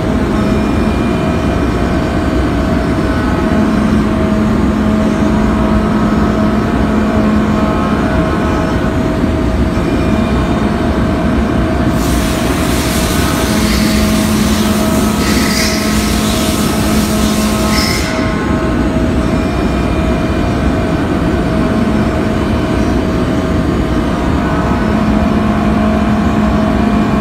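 CNC milling machine cutting a boat propeller under flood coolant: a loud, steady machine noise with a constant whine, and a low hum that comes and goes three times. A loud hiss starts about twelve seconds in and stops sharply some six seconds later.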